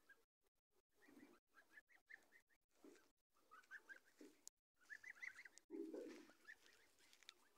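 Young domestic goslings peeping softly as they graze, a string of short high calls. A few soft low-pitched noises come between them, the loudest about six seconds in.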